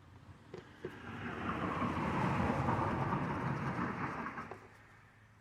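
A vehicle passing by, its noise swelling over about a second and a half and fading away, with a couple of light clicks just before it.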